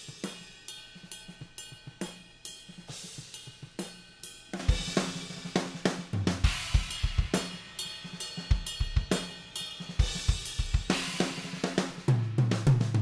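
Raw, unprocessed recording of a metal drum kit played back. It opens with a quieter, dynamic passage of cymbal and light snare playing. About four and a half seconds in, it turns much louder and heavier, with rapid kick drum strokes and crashing cymbals.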